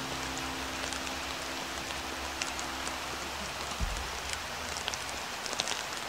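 Rain falling steadily, with many separate drops ticking close by, and one low thud a little past halfway.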